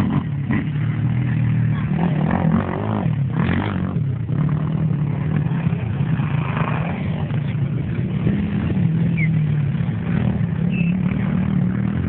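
Racing quad bikes (ATVs) running hard, several at once, their engine pitch rising and falling as they rev, shift and back off.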